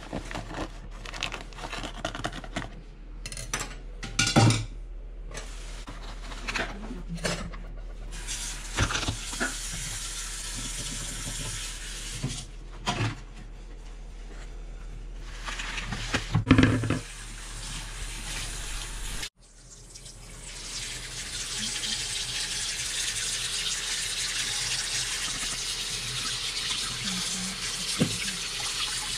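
Irregular knocks and rustles as raw chicken wings are handled in a plastic tray, with two louder knocks. After a sudden cut, tap water runs steadily into a stainless steel sink while the wings are rinsed by hand under the stream.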